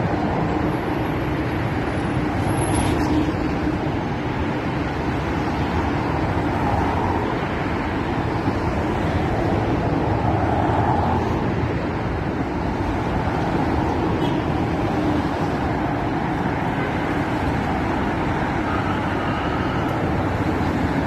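Dense road traffic passing close by on a multi-lane road: a steady rush of car engines and tyre noise.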